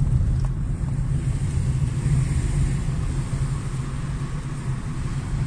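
Car cabin noise while driving: a steady low rumble of engine and road, with a faint hiss of tyres and air over it.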